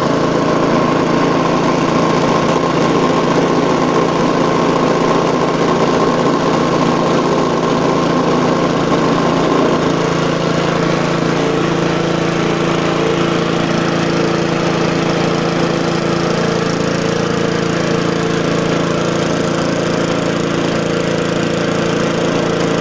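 Aspera petrol engine on a vintage rotary lawnmower running at a steady speed.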